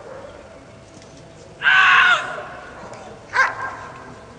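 Black German Shepherd barking at the trial helper: a long bark about one and a half seconds in and a shorter one near the end, the barking of a dog guarding the helper after releasing the sleeve.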